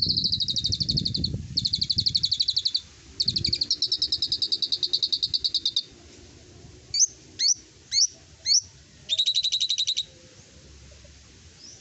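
Caged pied starling (jalak suren) singing: fast rattling trills in several bursts, then four short rising whistles about half a second apart, then one more rattling trill.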